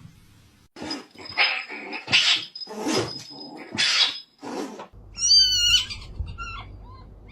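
A pet gives about six harsh, noisy calls. Then, from about five seconds in, a kitten gives a run of short, high-pitched meows that rise and fall.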